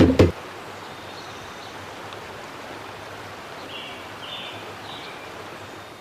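A percussive music cue with wood-block hits ends abruptly about a third of a second in. A steady outdoor ambience hiss, like a distant stream, follows, with a few faint high chirps around the middle.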